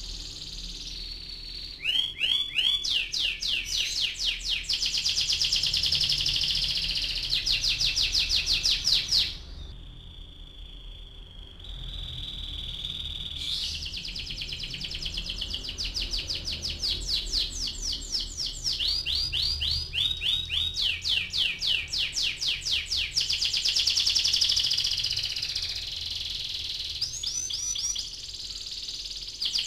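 Domestic canary singing a long rolling song: fast trills of rapidly repeated high notes, switching from one phrase to the next. About a third of the way through the song drops to a softer held note for a few seconds before the trills resume.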